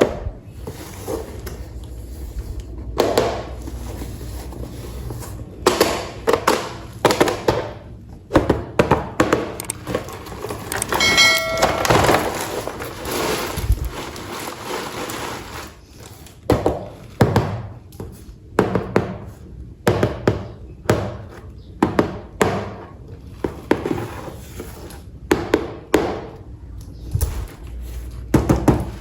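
Toy train parts and plastic track pieces being handled and fitted together: a long run of irregular clicks, taps and knocks, with a brief ringing tone about eleven seconds in.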